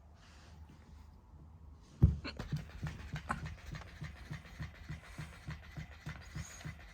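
A sudden knock, then a battery-powered tanuki (raccoon-dog) cat toy's motor mechanism clattering in a fast, even rhythm, about five clicks a second.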